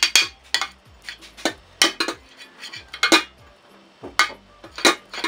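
A utensil clinking and scraping against a glass baking dish as it is greased with lard: a dozen or so sharp, irregular clinks with softer scraping between.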